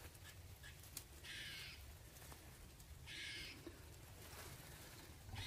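A crow cawing twice, faint, each harsh caw lasting about half a second.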